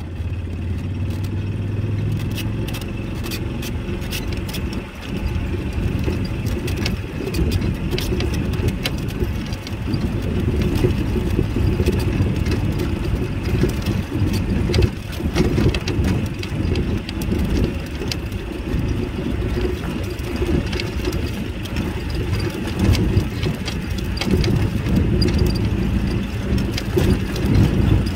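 Vehicle on the move: a steady low engine and road rumble, gusty and uneven, with scattered light rattles.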